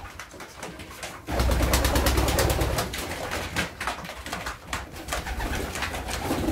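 Racing pigeons feeding at a wooden trough feeder: many quick, irregular clicks of beaks pecking mixed seed, with pigeons cooing. A low rumble sets in suddenly about a second in.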